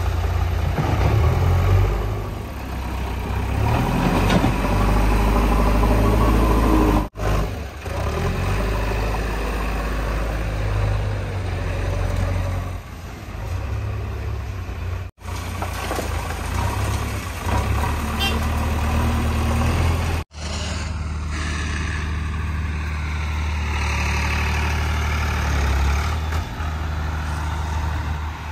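Diesel engines of a JCB 3DX backhoe loader and tractors running with a steady heavy rumble. The sound breaks off abruptly three times, at about 7, 15 and 20 seconds in.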